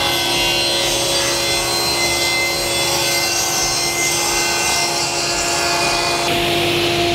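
Sliding table saw running and ripping a spruce panel, the blade cutting steadily through the wood.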